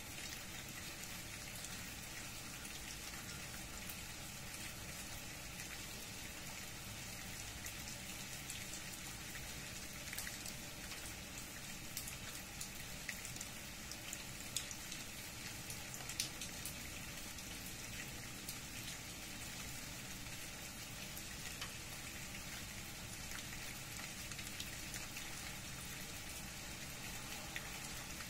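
Steady rain falling through tree leaves onto leaf-covered ground, with scattered sharper drop hits close by and a couple of louder ones about halfway through.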